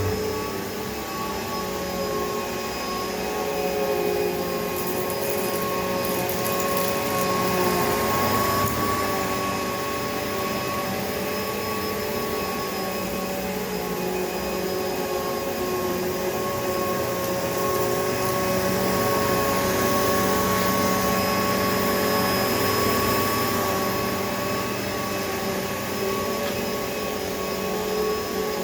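Hoover Elite Rewind upright vacuum cleaner running steadily, its motor and fan giving a constant whine over the rush of air. The motor has been freshly torn down and cleaned.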